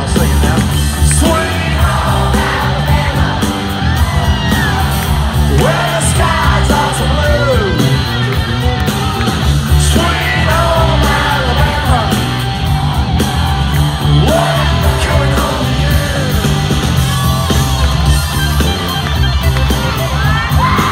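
Live band playing loud country-rock over steady drums and bass, with gliding lead lines and the crowd yelling.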